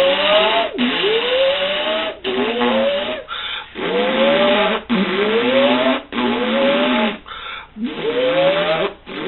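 Time machine sound effect: a whirring tone over a hiss, rising in pitch on each cycle and repeating about seven times, roughly once a second.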